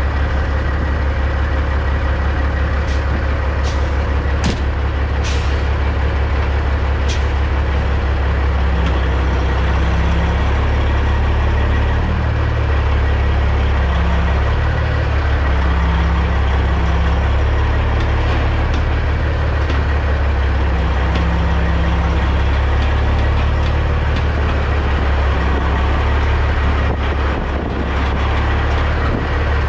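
The CAT C15 diesel engine of a 2006 Peterbilt 379 running steadily at low revs while the truck reverses, a deep constant drone. A handful of short sharp clicks sound between about three and seven seconds in.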